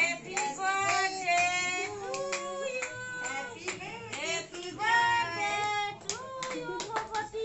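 A group of voices, women and a child among them, singing together with hand-clapping.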